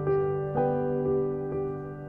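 Slow, soft piano music, with single notes struck about twice a second, each ringing and fading over a held lower note.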